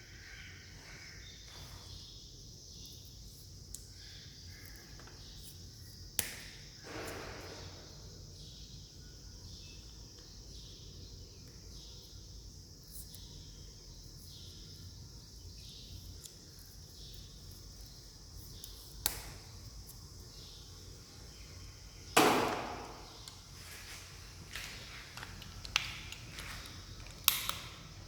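Handling noises: a few sharp clicks and knocks, the loudest about two-thirds of the way through with a short tail, over a steady hiss.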